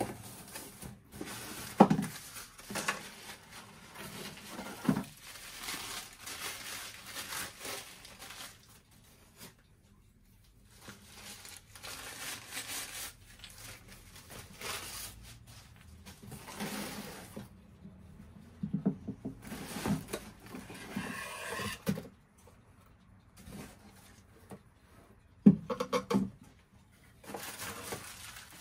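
Unpacking sounds: cardboard box flaps and paper wrapping rustling and scraping in irregular bursts, with a few sharp knocks as the cuckoo clock's parts are handled and set down on the wooden bench.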